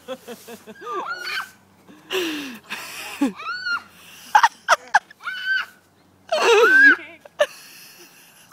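Laughter and young children's high-pitched squeals during rough play: a quick run of laughing pulses at the start, then several separate short squeals.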